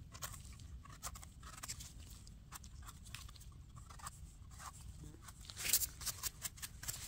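A mushroom knife scraping and brushing dirt off the firm stem of a freshly picked porcini: a run of short, scratchy strokes, the loudest cluster a little before six seconds in.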